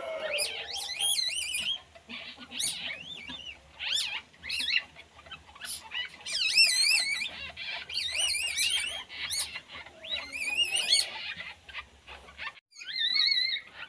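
Newborn civet kits squealing in the nest: repeated high, wavering squeaks, some drawn out into longer warbling cries.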